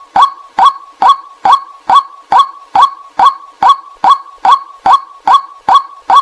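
White-breasted waterhen's 'kwak' call repeated in an even, unbroken rhythm, about two to three short sharp calls a second. It is a lure call, played to draw waterhens in.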